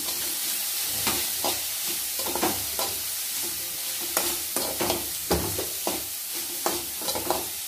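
Steel spoon scraping and stirring raw-jackfruit poriyal in a metal kadai, repeated scrapes about once or twice a second over a steady sizzle of the food frying.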